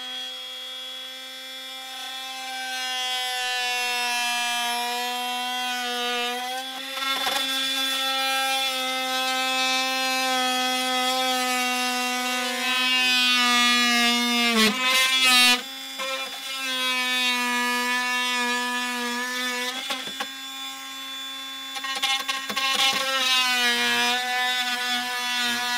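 Cordless oscillating multi-tool cutting through a plastic RV sewer pipe: a steady buzz that breaks off briefly a couple of times around the middle.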